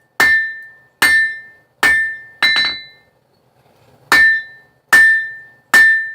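Hand hammer striking a hot knife blank on an anvil, about one blow a second, each blow ringing with a clear high tone that fades. Four blows, the last with a couple of quick light rebound taps, a pause of about a second, then three more blows.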